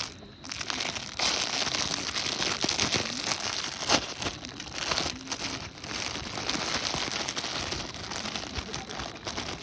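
Crinkling and rustling of something crumpled or handled, starting abruptly about a second in, with many small crackles.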